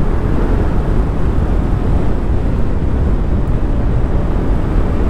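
Steady low rumble of wind and road noise while riding a Yamaha Aerox 155 scooter.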